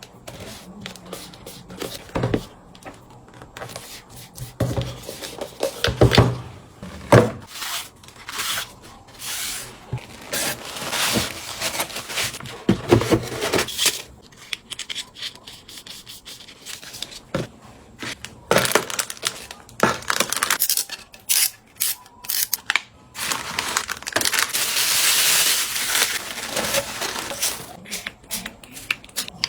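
Irregular rubbing, scraping and crinkling noises with scattered sharp clicks. The loudest clicks come around six and seven seconds in, and a longer stretch of scraping noise comes near the end.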